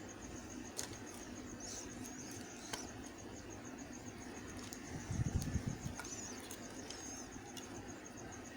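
A knife cutting into a bar of dry white soap, giving a scattering of sharp crisp clicks, with a few soft low thumps about five seconds in. Faint high chirps and a steady high pulsing run behind it.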